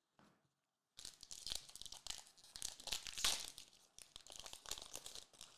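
Foil booster pack wrapper being torn open and crinkled by hand: a run of crackling starts about a second in and is loudest in the middle.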